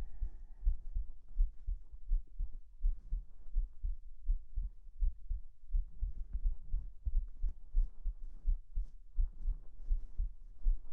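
A human heartbeat heard close up through the chest, a run of low, muffled beats, with faint soft fabric rustling of bedding over it.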